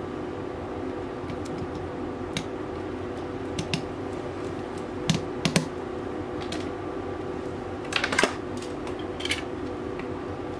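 Small metal clicks and taps of airsoft pistol parts being handled and fitted into a Tokyo Marui Hi-Capa frame, scattered and irregular, loudest in short clusters about five seconds in and again around eight seconds. A steady background hum runs underneath.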